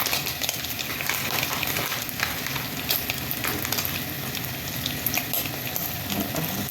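A pot of salted water at a rolling boil as spaghetti is added, a steady crackling, bubbling hiss with many small pops.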